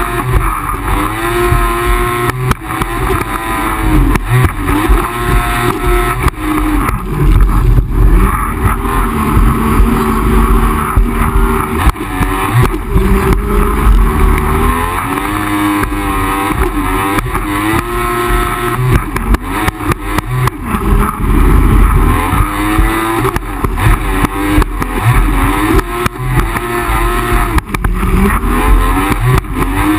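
Yamaha WaveRunner two-stroke engine running at speed, its pitch rising and falling with the throttle, with the hull slapping the water and wind buffeting the mounted camera.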